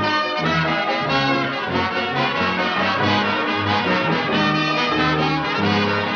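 Orchestral cartoon score with prominent brass playing a busy passage of quickly changing notes.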